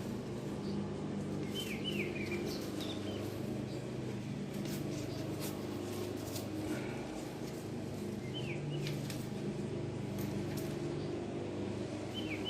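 Small birds chirping a few times in short falling notes, over a steady low hum. Light clicks and rustles come from hands winding a rubber rim strip around a bicycle wheel rim.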